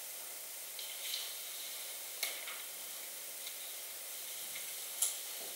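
Steady hiss of room and recording noise, with a few faint short clicks and rustles of paper being handled, about one second in, a little after two seconds and near the end.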